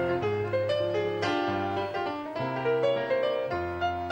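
Solo piano playing a short interlude between sung lines of a cabaret song, with held bass notes under a simple melody.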